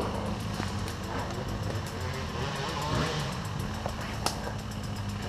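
Dirt bike engine running at a steady speed, with one sharp knock about four seconds in.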